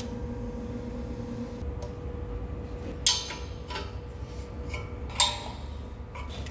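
Steel strap clamps and a spanner clinking against the steel T-slot table of a jig borer as the clamps are set and their nuts tightened: two sharp metal clanks, about three seconds in and again about five seconds in, with lighter taps between, over a steady low hum.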